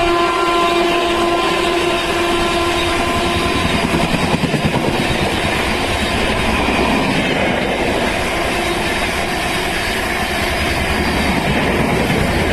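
A WAP4 electric locomotive's horn sounding one steady note that stops about three and a half seconds in, followed by the loud, continuous noise of the express train's wheels running past on the rails.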